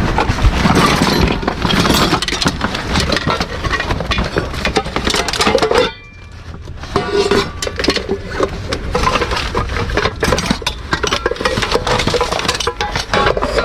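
Items being rummaged through and shifted inside a dumpster: dense rustling and clattering with clinks, briefly quieter about six seconds in.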